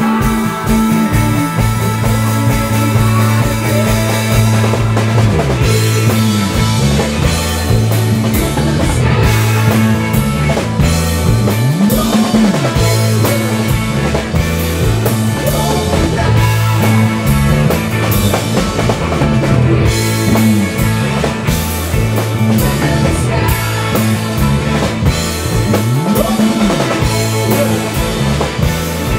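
Live psychedelic rock band playing: electric guitars, electric bass and a drum kit. Two low notes slide up and back down, one about halfway through and one near the end.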